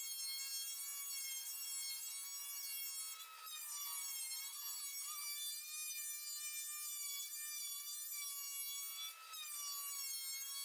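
DeWalt benchtop thickness planer running with a steady high whine while it takes a light pass on an old rough-cut pine board. The note shifts and dips briefly about three seconds in and again near the end, as the cutterhead takes up and then drops the load of the board.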